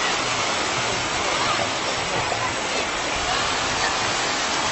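Steady rushing splash of water as a huge shoal of tamban (sardines) thrashes at the surface in the shallows.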